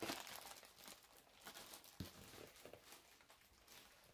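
Faint rustling and light handling noises with a soft knock about two seconds in: packaging and parts of a new tool kit being handled.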